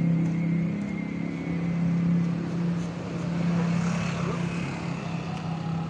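A steady low engine hum that holds one pitch throughout.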